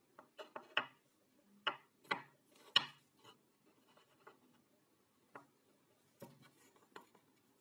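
Small plywood blocks and flat aluminium bars being set down and shifted on a workbench: a series of light wooden knocks and clacks, several in quick succession about a second in, then more spaced out.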